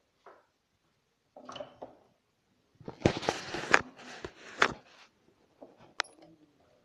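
Handling noise from a phone held in the hand: rustling with a run of sharp knocks and clicks, loudest about three to five seconds in, and one sharp click about six seconds in.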